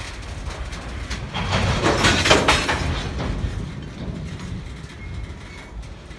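Freight cars rolling past on the rails, wheels clicking and rumbling, with a loud rattling stretch about two seconds in that then fades away.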